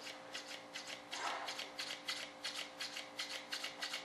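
Quick, irregular rubbing and scraping strokes of hands handling parts, about three or four a second, over a faint steady hum.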